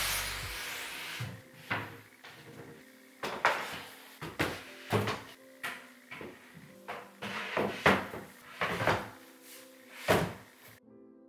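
IKEA SEKTION wall cabinet boxes being set down on a wooden base frame and pushed against each other: a dozen or so irregular knocks and thumps, which stop abruptly shortly before the end. Soft background music runs underneath.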